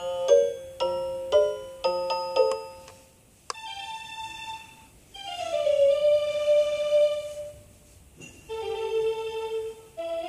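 FD464S melody alarm clock playing its electronic tunes. First comes a chime-like tune of struck, ringing notes. After a click about three and a half seconds in, a different tune follows, of held notes in short phrases with brief pauses between them.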